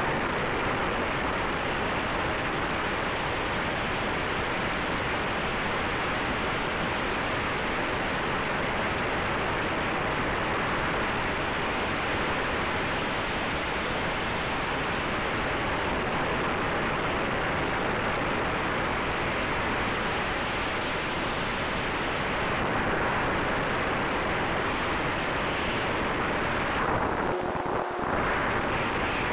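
Steady rush of wind and propeller wash over the onboard camera's microphone on an electric RC aerobatic airplane in flight, with a faint steady hum beneath. The rush thins briefly near the end.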